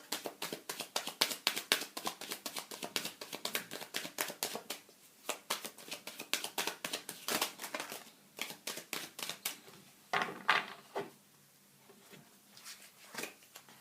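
Tarot cards being shuffled by hand: a rapid run of card flicks and slaps for about nine seconds, then a few separate card sounds as cards are pulled.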